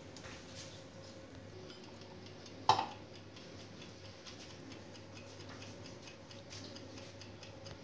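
Mechanical wind-up egg timer ticking in an even, fast run of about four ticks a second, set for the experiment's 30-minute wait. One sharp knock about two and a half seconds in, as it is put down on the worktop.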